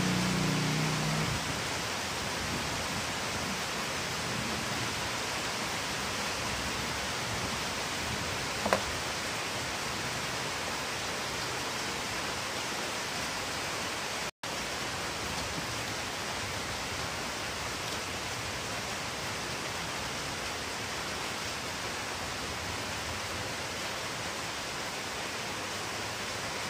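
Steady hissing background noise, with a single faint click about nine seconds in and a momentary dropout about halfway through.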